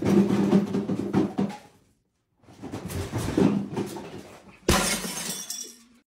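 Beer cans clattering as one is pulled from a box, then a beer can cracked open about 4.7 s in with a sharp snap and a hiss that fades.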